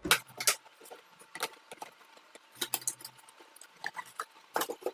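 A package being opened by hand: scattered clicks, crinkles and taps of packaging. The loudest come at the very start and again near the end.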